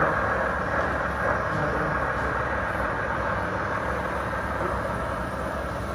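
Radio-controlled model construction vehicle running: a steady mechanical noise that eases off slightly toward the end.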